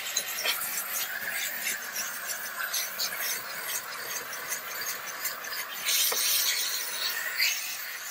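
Steam hissing from a Chief 100 steam cleaner's brush-tipped nozzle while the brush scrubs a plastic engine cover, with short rubbing strokes through the hiss. The hiss gets louder for a second or so about six seconds in.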